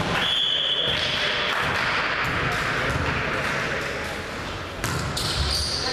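Reverberant sports-hall ambience around an indoor volleyball court between points: indistinct voices and scuffs on the wooden floor. A thin, steady high tone sounds for about a second near the start, and a shorter one near the end.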